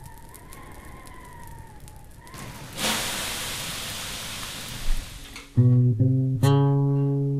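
Crackling like a small fire with a faint wavering whistle, giving way about two and a half seconds in to an even hiss of rain. Near the end, three low plucked guitar notes ring out in quick succession, louder than anything before them.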